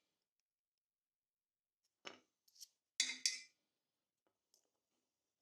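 A few short metallic clicks and clinks of hand tools or metal parts being handled, with two sharp clicks in quick succession about three seconds in.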